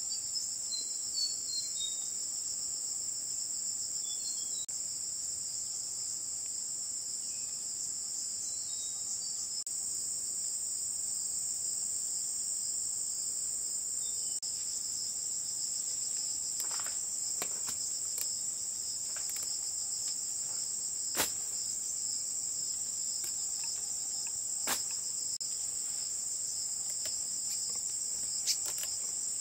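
Continuous high-pitched insect chorus, a steady even drone. A few short chirps come in the first third, and scattered sharp clicks and snaps come in the second half, the loudest about two-thirds of the way through.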